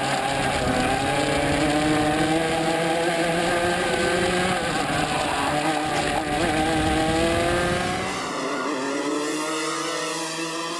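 Rotax MAX 125 cc two-stroke kart engine heard from onboard at race speed. Its pitch climbs steadily, dips briefly about halfway as the kart goes through a corner, then climbs again. About eight seconds in, the engine sound cuts off and music takes over.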